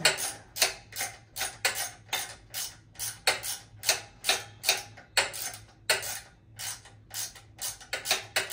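Hand ratchet clicking steadily, about three clicks a second, as a screw on the bike frame is worked loose by hand where a power driver won't fit.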